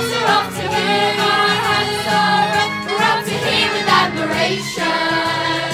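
A group of young voices singing a show tune together in chorus over a recorded musical accompaniment.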